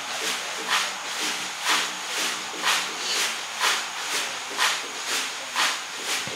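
Music track intro: a hissing percussion beat about twice a second, stronger every other stroke, over a low, stepping melody line.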